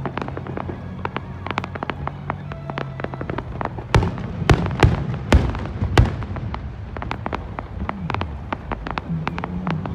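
Fireworks display: a steady stream of rapid crackling and popping, then, about four seconds in, a quick run of loud booms as shells burst overhead, five in about two seconds, followed by more crackling.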